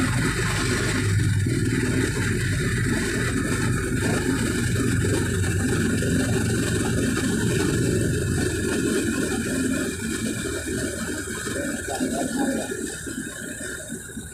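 A vehicle's engine and road noise heard from inside the vehicle as it drives along, running steadily, then easing off over the last few seconds as it slows in traffic.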